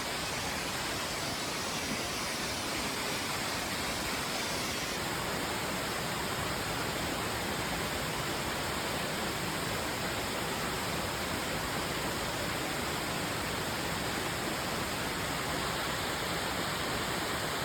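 Waterfall, rushing water as a steady, even noise.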